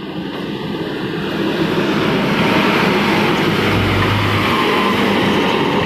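Heavy diesel engines running hard, an excavator and a light dump truck working in deep mud. The noise swells over the first couple of seconds, then holds steady and loud.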